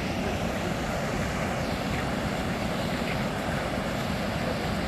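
Goðafoss waterfall's steady rush of falling water.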